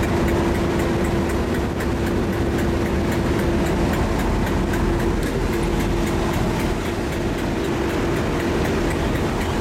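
Diesel-hauled passenger train moving slowly along the sidings: a diesel engine running with a steady hum over the rumble of the carriage wheels on the track.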